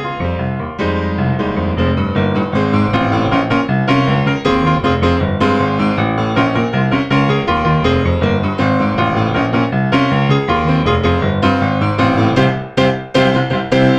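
Piano playing a busy, fast-moving piece with many quick notes over full chords.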